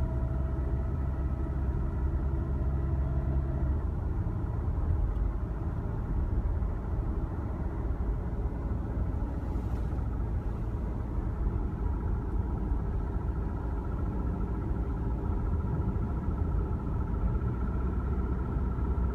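2010 Toyota Camry's 2.5-litre four-cylinder engine running cold, a steady rumble; a higher hum drops away about four seconds in. The owner suspects valve or lifter noise.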